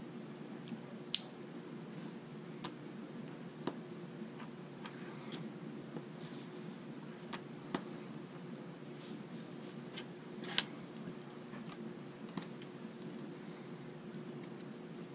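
Small LEGO pieces clicking and tapping as they are handled and pressed together on a wooden table: scattered sharp clicks, two louder ones about a second in and about ten seconds in, over a faint steady household hum.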